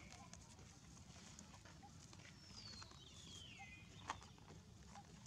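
Near-silent ambience with one thin, whistle-like animal call that falls steadily in pitch over about a second, a little past the middle, and a single sharp click about four seconds in.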